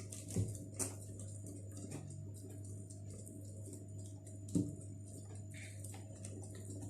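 Quiet kitchen sound: a few light knocks and faint irregular ticks over a steady low hum.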